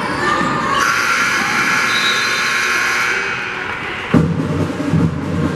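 Gymnasium crowd din during a basketball game, swelling about a second in, then cutting suddenly to music with a heavy beat about four seconds in.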